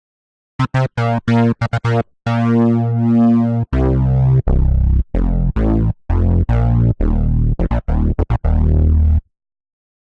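Synthesizer and electric-piano chords triggered from a Native Instruments Maschine MK2: short chopped stabs cut off to dead silence between them, with one longer held chord about two seconds in. The sound stops abruptly near the end.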